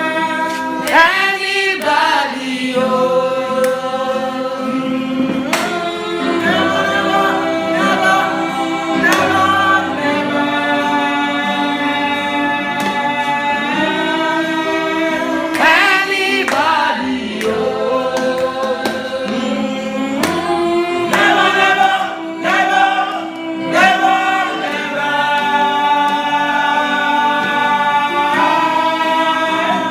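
Gospel choir singing in harmony, with long held notes that change pitch every second or two.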